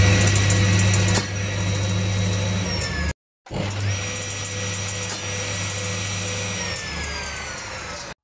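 Circular saw motor and blade running with a steady whine. The sound drops out briefly about three seconds in. Over the last couple of seconds the whine falls in pitch and gets quieter as the blade starts to slow down.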